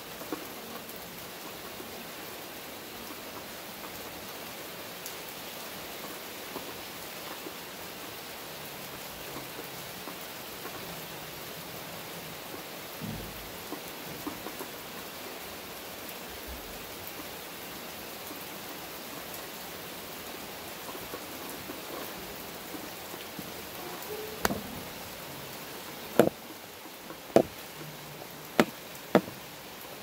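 Steady rain pouring during a thunderstorm, an even hiss with a brief low rumble about 13 seconds in. Near the end come five sharp knocks, the loudest sounds, a second or so apart.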